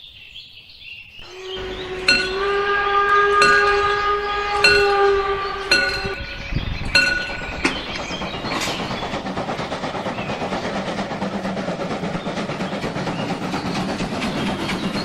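Sound effect of a train: a horn is held for about five seconds, with bell-like strikes about once a second. From about seven seconds in, a steady rolling rumble of a train passing follows, with a fast clickety-clack.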